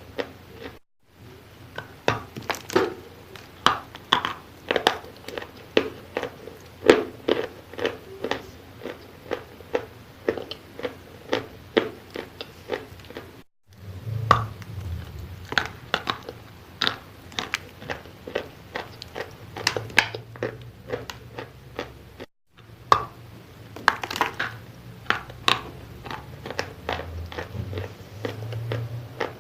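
Close-up crunching and chewing of wet chalk: a dense run of crisp, crackly crunches, several a second, broken by three brief cut-outs to silence.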